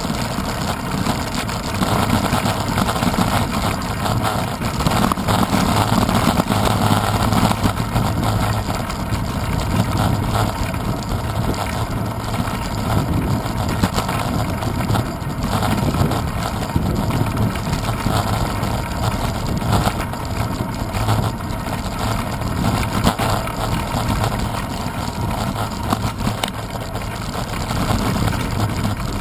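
Bicycle riding noise picked up by a handlebar-mounted camera: steady wind rush and the rumble of the tyres over paving stones, with constant small rattles from the bike's vibration.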